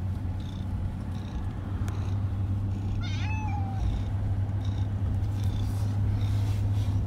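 A pet cat meows once about three seconds in, a short call a little under a second long, over the steady low drone of the truck's cabin on the road.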